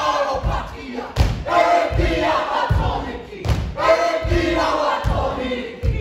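A group performing a haka: many voices shouting the chant together in short phrases over heavy, regular foot stamps about every half second to second. Two sharp smacks cut through, a little after one second and again about three and a half seconds in.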